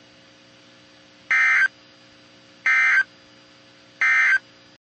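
Emergency Alert System end-of-message data tones: three short, identical bursts of a harsh digital warble about a second and a half apart. They signal that the alert broadcast is over.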